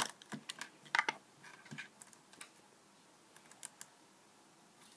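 Small plastic clicks and taps as a hard plastic Apple EarPods case is handled and set down on a wooden desk, a quick run of them in the first two seconds, then a few scattered clicks.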